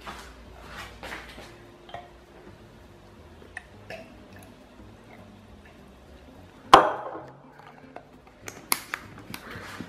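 Small taps and clinks of a plastic juice bottle and a metal jug being handled on a kitchen counter, with one loud knock and short ring about seven seconds in, then a few sharp clicks near the end as the bottle's plastic cap is screwed on.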